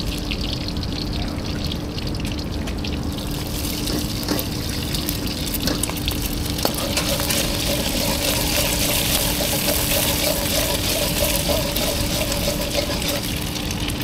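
Stir-frying in a wok on a fan-blown gas burner: a steady hum from the burner's fan under a hissing sizzle that grows louder about six seconds in, with light scrapes and clinks of a metal spatula and ladle against the wok.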